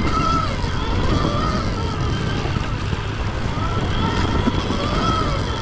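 Stark Varg electric dirt bike's motor whining, its pitch rising and falling in smooth swells as the throttle is worked, over a steady low rumble of wind and ground noise.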